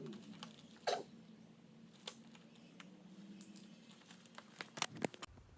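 Faint scattered ticks and light rustles of paper being handled at a drafting desk, over a faint low steady hum. There is a brief louder rustle about a second in and a quick cluster of ticks near the end.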